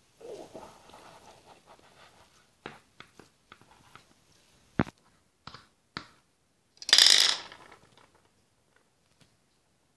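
Plastic toy horse tapped along a wooden floor, its hooves clicking a dozen or so times. About seven seconds in comes a brief louder clatter as a plastic jump pole is knocked down.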